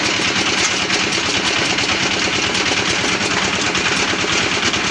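Homemade rock crusher running under load, breaking the stones fed into its hopper: a steady, dense clatter of rock on steel over the machine's running hum.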